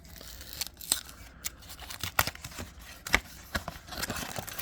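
Trading cards being handled: an irregular run of sharp clicks and short scrapes as the cards slide and tap against each other.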